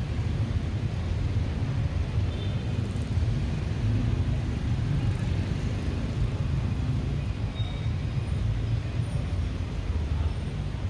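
Busy city street traffic: cars, vans and motorcycles running close by, a steady low engine noise with no break.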